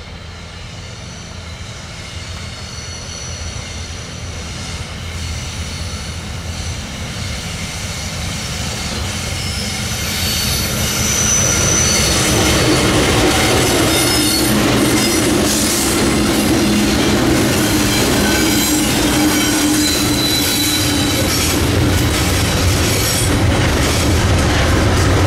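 Three Tasrail TR class diesel locomotives approach and pass at the head of a freight train. Their engine drone grows steadily louder over the first ten seconds or so. The container and tank wagons then roll past with wheel clatter and some high wheel squeal.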